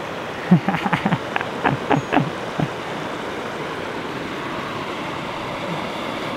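Steady rush of creek water as a Toyota Tacoma pickup drives through the shallow stream, its engine running under the water noise. In the first couple of seconds a quick run of short pitched sounds rises and falls over it.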